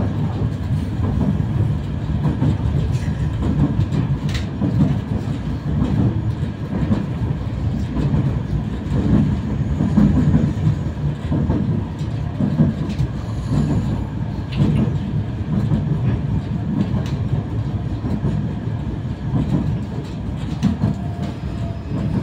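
Cabin of a 71-932 Nevsky tram in motion: a steady low rumble of the wheels running on the rails, with a few sharp clicks from the track.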